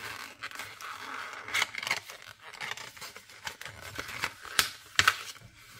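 Hard plastic blister packaging of a precision hobby knife being handled and opened: crinkling and scraping, with two sharp clicks near the end.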